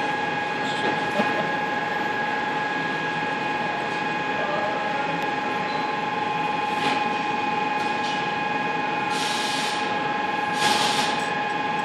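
Steady drone of running plant machinery, a hum with several constant pitches. A few short hisses come over it in the last few seconds.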